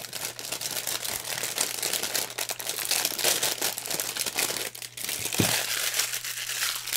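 Clear plastic bag crinkling as hands handle it, working it open and pulling out a silicone mold: a dense, continuous run of small crackles.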